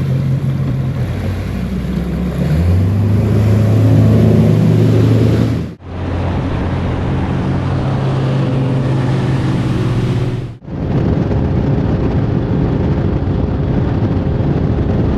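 Outboard engine of a Ranger Z185 bass boat running at speed, a steady engine hum over a rushing hiss of wind and water. The sound cuts off abruptly and resumes twice, about six and ten and a half seconds in.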